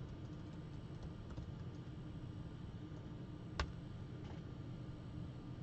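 Low steady hum with a few faint ticks and one sharp click about three and a half seconds in.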